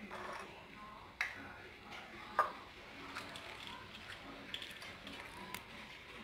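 Faint clinks and scrapes of a metal fork against a ceramic plate as a crepioca is cut, with two sharper clicks in the first few seconds.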